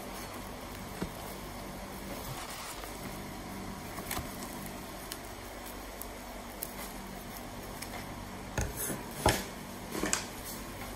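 Kitchen scissors snipping into fried tofu puffs: quiet cutting and handling sounds, with a few sharper clicks and knocks near the end.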